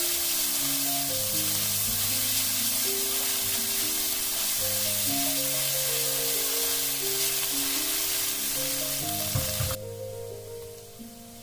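Green onions and ginger scallion sauce sizzling in hot oil in a wok while a spatula stirs them. The sizzle stops suddenly near the end.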